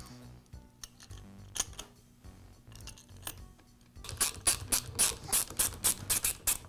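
Screws being driven into the plastic cylinder cap of a Bostitch roofing nailer with a hand driver. A few faint clicks of parts being set come first, then from about four seconds in a quick, regular run of clicks at about six or seven a second as the screws are tightened.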